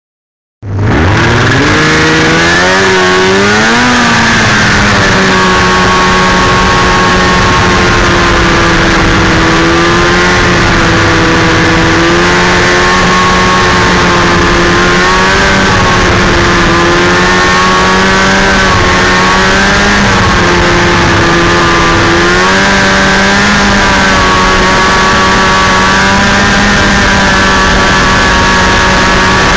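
Snowmobile engine running under way, heard from on board: it revs up over the first few seconds, then holds a fairly steady pitch with small rises and dips as the throttle changes, over a loud steady hiss.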